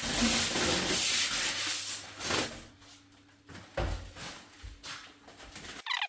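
Packaging being handled while a fridge is unwrapped: a long loud rubbing, scraping noise, a shorter burst of the same, then a few low thumps about four seconds in.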